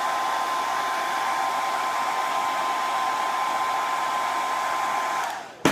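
Hand-held hair dryer blowing steadily and loud, a steady whine over the rush of air. It cuts off about five seconds in, the whine fading, and a sharp click follows.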